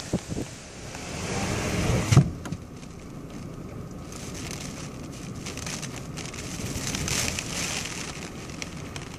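Rain beginning to hit a car's windows and body, heard from inside the car: scattered ticks of drops over a steady hiss, swelling a little later on. About two seconds in, a rising rush ends in one sharp thump.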